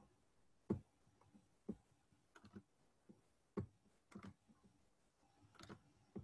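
Irregular, sparse clicks and taps of a computer keyboard and mouse, spaced from about half a second to a second or more apart, in a quiet room.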